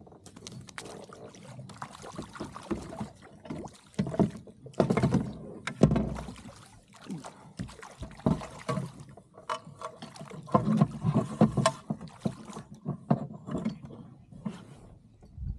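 Irregular knocks and bumps on a plastic fishing kayak's hull, with splashing at the water alongside, as a fish is brought in beside the boat; the loudest knock comes about six seconds in.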